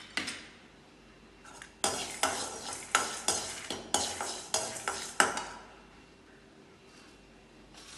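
Steel spatula stirring lentils and dried red chillies dry-roasting in an empty kadai, scraping and knocking against the pan in a run of sharp strikes, two or three a second, from about two seconds in until a little past the middle.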